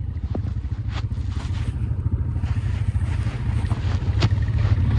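ATV engine running at low revs, slowly getting louder toward the end, with a few sharp knocks over it.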